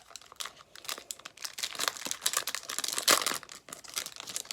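Foil wrapper of a 2022 Bowman baseball card pack crinkling and tearing as it is opened by hand, an irregular run of crackles loudest about three seconds in.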